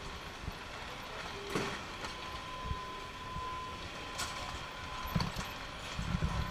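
Factory assembly-line background noise with scattered knocks and clicks from television sets and cables being handled, and a steady high tone that starts about two seconds in. A low rumble comes up near the end.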